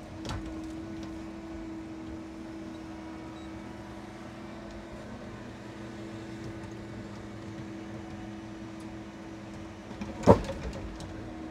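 Timber truck's engine and loader-crane hydraulics running with a steady hum. About ten seconds in there is one loud thud as the grapple sets a bundle of wooden timber mats down on the load bed.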